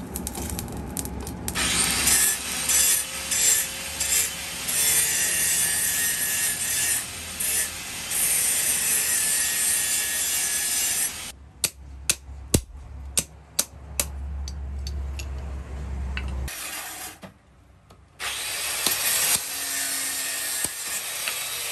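Electric blower forcing air into a charcoal forge: a steady rushing noise over a low motor hum. Partway through the rushing drops away and a run of sharp metallic clicks and strikes follows, then the rushing noise comes back near the end.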